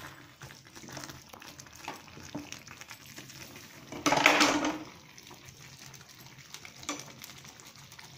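Spatula stirring and scraping thick semolina upma in an aluminium pot, with small clicks against the pot. About four seconds in, a louder rustling noise lasts under a second.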